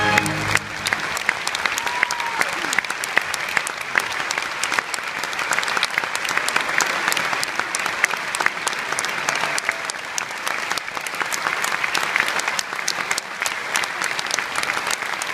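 A large audience applauding, a dense steady mass of clapping. A held closing chord of music stops about half a second in.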